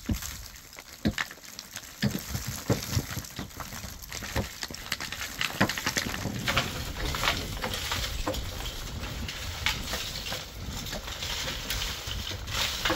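Dry earth and debris from a mud-and-timber roof being pulled loose and dropped: irregular knocks, crumbling and crackling rustles of soil and sheeting.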